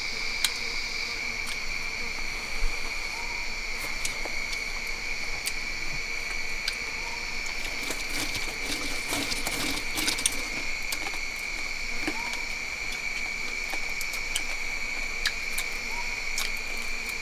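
Steady high-pitched insect chorus from the forest, a continuous buzzing drone at two pitches, with scattered light clicks and taps, more of them about eight to ten seconds in.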